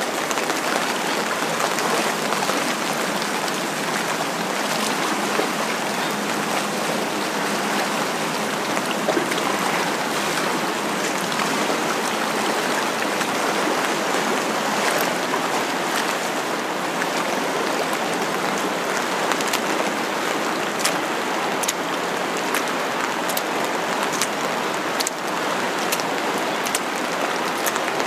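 Steady heavy rain: a dense, even hiss of rainfall with many sharp drop ticks close by, more of them in the second half.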